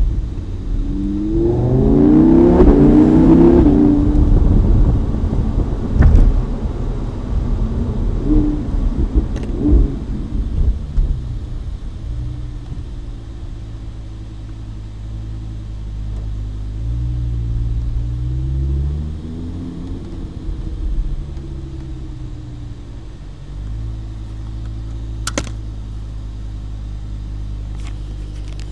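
Lamborghini Huracan Spyder's V10 engine heard from the open-top cabin: a short rev climbing in pitch near the start, a few sharp cracks over the next several seconds, then low-speed running with one brief rev rising and falling, settling to a steady idle near the end.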